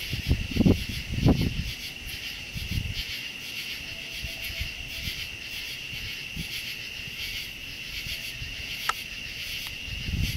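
Night chorus of crickets and other insects: a steady, high-pitched pulsing trill. A few low thumps stand out in the first second and a half.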